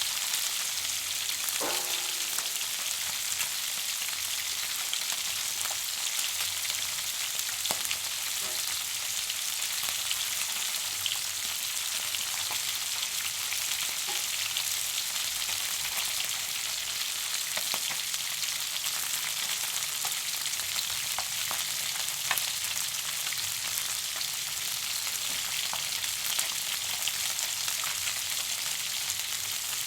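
Food sizzling in a frying pan: a steady high hiss with frequent small crackles and occasional sharper pops.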